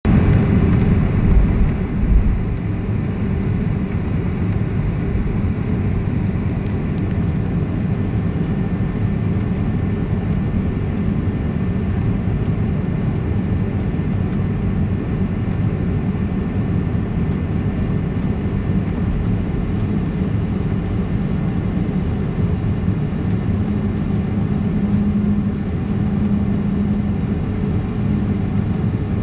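Airliner's engines running at low, steady power, heard inside the cabin as the plane taxis: a steady rumble with a constant hum, plus a couple of low bumps about a second or two in.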